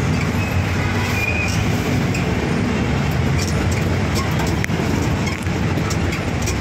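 Jeepney's diesel engine running and road noise while it drives, heard from inside the open passenger cabin, with scattered light rattles.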